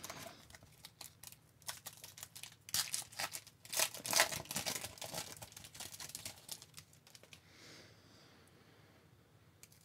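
A hockey card pack's wrapper being torn open and crinkled by hand, a dense run of rustles and sharp crackles that is loudest about three to five seconds in, then dies down to a faint rustle.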